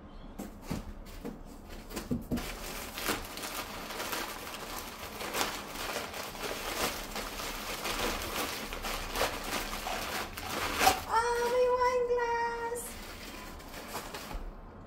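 Crumpled packing paper rustling and crinkling as it is pulled out of a cardboard box. About eleven seconds in, a woman's wordless high-pitched voice is held for about two seconds.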